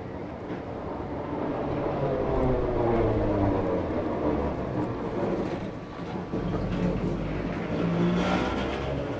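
Vintage tram motor car and its trailer passing close on street track. The motor whine drops in pitch as it goes by, over a low rumble of wheels on the rails.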